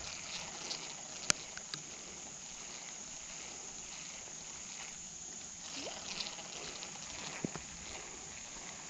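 Steady outdoor background of insects chirring, with one sharp click about a second in, a smaller click just after, and a few faint ticks later on.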